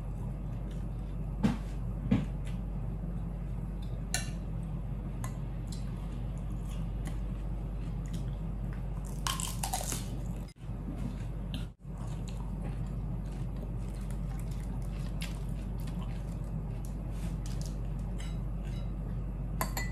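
A person eating noodles and lettuce close to the microphone: chewing and biting, with a few sharp clicks of chopsticks and spoon against the bowl, over a steady low hum. A short, louder crunching sound comes about halfway through, and the sound cuts out briefly twice soon after.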